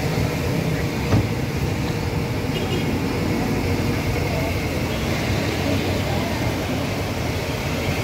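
Steady low rumble of street traffic and background noise, with a single knock about a second in.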